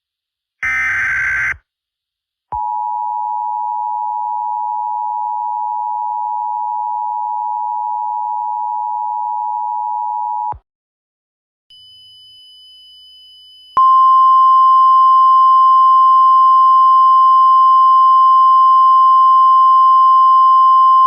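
Emergency Alert System tones. First comes the last SAME header data burst, about a second long, near the start. Then the EAS two-tone attention signal holds steady for about eight seconds, and after a short gap the single NOAA Weather Radio alert tone comes in louder and holds steady for about eight seconds.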